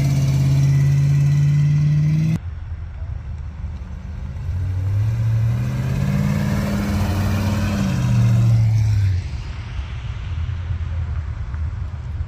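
Cars driving off. First a steady engine hum cuts off abruptly about two seconds in. Then a car engine accelerates, its note climbing, holding, and dropping away near nine seconds in.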